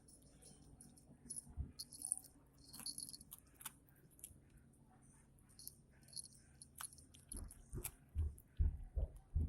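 Light clicks and crinkly rustling as cats go at a snack, then a run of low thumps in the last two seconds.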